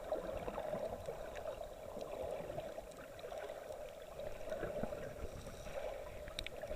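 Muffled moving water heard through an action camera's waterproof case: a steady dull wash with low rumbling and a few faint ticks.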